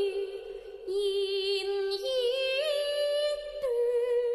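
A woman singing Cantonese opera in a high, sustained voice, drawing out one long melismatic line. She holds a low note, breaks briefly about a second in, steps the pitch up twice around the middle, then drops back down near the end.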